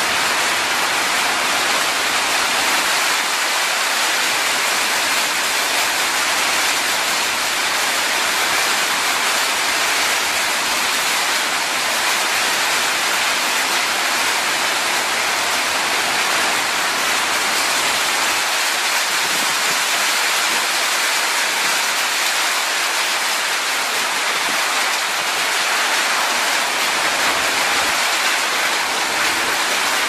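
Steady heavy rain: a dense, even hiss with no single drops standing out.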